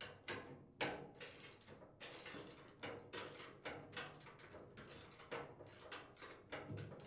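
Hand wrench turning and clinking against the steel nuts and bolts that hold the handle to a Cub Cadet chipper shredder's sheet-metal hopper, as the fasteners are unthreaded: a faint run of irregular metal clicks and small knocks, several a second.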